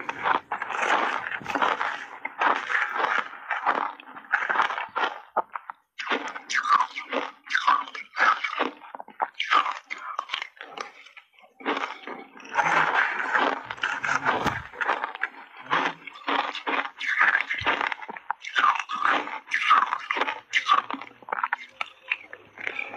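Close-miked crunching and chewing of big mouthfuls of refrozen shaved ice, bite after bite, with brief pauses about six and eleven seconds in.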